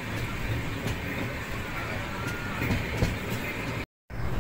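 Passenger train running along the track, heard from inside a carriage by the window: a steady rumble and rush with a few faint clicks of the wheels. The sound cuts out completely for a moment near the end, then comes back louder.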